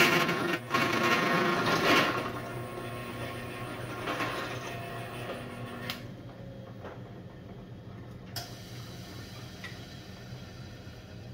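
Power drill running as it bores a hole through a steel knife blank, loud for about two seconds and then fading away over the next few seconds. A steady low hum carries on after it, with a sharp click about eight seconds in.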